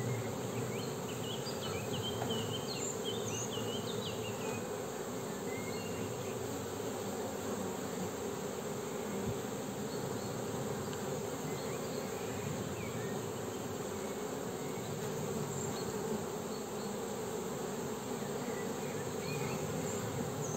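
Honeybees buzzing steadily over an opened hive with its frames exposed: a dense, even hum.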